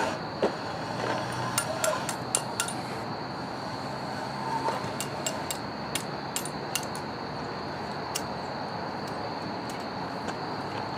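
Scattered short, sharp clicks, a cluster in the first three seconds and more between about five and eight seconds, over a steady high-pitched hum.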